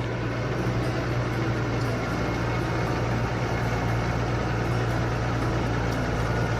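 A motor running steadily, a low hum with an even hiss over it.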